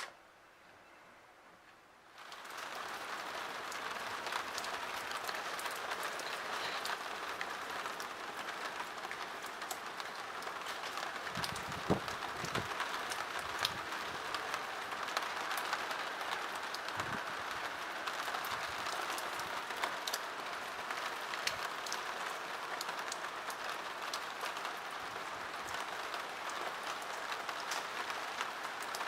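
Heavy typhoon rain and wind: a dense, steady hiss of pouring rain with scattered drop clicks. It starts suddenly about two seconds in, and a few dull low thumps come near the middle.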